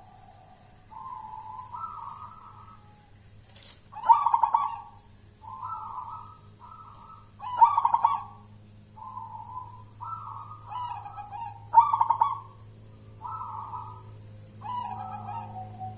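Zebra dove (perkutut) of the local jolotundo type cooing: about three repeated phrases, each a loud rolling opening note followed by several shorter coos stepping up and down in pitch.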